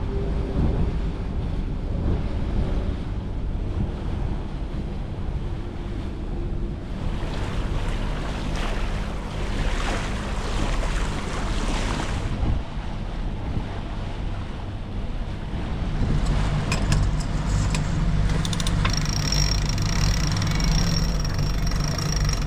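Wind on the microphone and water rushing along the hull of a catamaran under way, with a steady engine hum that comes up in the second half. A thin, high, steady whine joins near the end.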